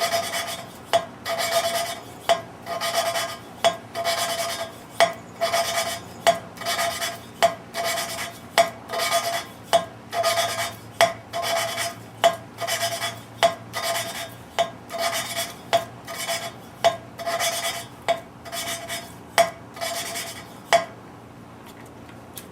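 A valve being hand-lapped into its seat in a Ford 302 V8 cylinder head with lapping compound: gritty rubbing strokes, about one and a half a second, as the valve is twisted back and forth against the seat, stopping near the end.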